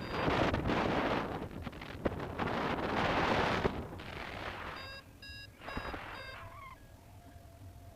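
Wind buffeting the microphone in flight, then a paragliding variometer giving a quick series of short, high beeps about five seconds in.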